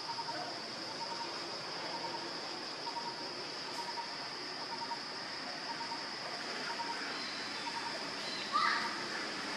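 Forest background: a steady high-pitched insect drone with a short chirp repeating about once a second, and a brief louder call near the end.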